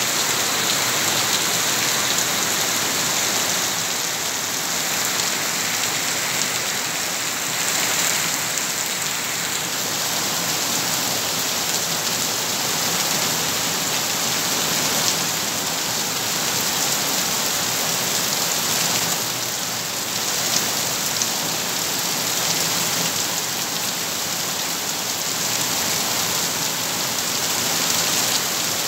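Heavy rain falling in a steady downpour on concrete paving, leaves and a sheet roof, with runoff pouring off the roof's edge.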